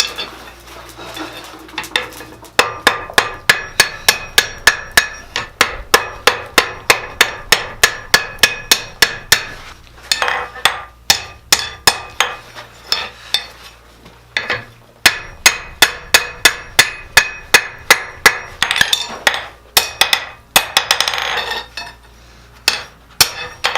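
Blacksmith's hammer striking steel on an anvil in a long run of steady, ringing blows, about two to three a second, with a few short pauses.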